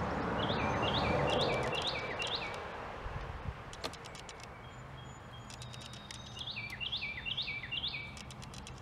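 A songbird singing two phrases of about five quick repeated slurred whistles each, one in the first couple of seconds and one near the end, over steady outdoor background noise that swells briefly at the start.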